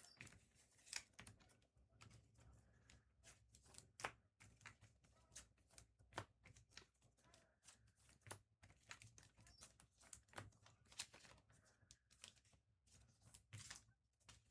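Faint, irregular clicks and taps of typing on a computer keyboard, a few keystrokes a second with short pauses.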